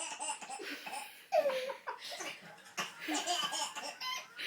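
Laughter in quick, repeated bursts, with a louder rising-and-falling squeal of laughter about a second and a half in.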